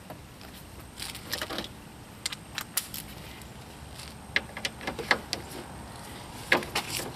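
Scattered metallic clinks and clicks of hand tools, a socket wrench with an extension being handled and brought to the condenser's mounting bolt.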